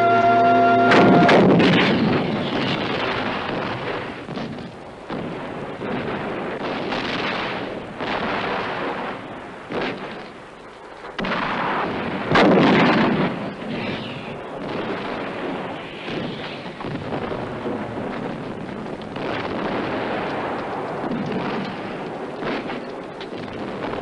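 Battle sound effects of explosions and gunfire, with repeated blasts, the loudest about twelve seconds in. A music chord cuts off about a second in.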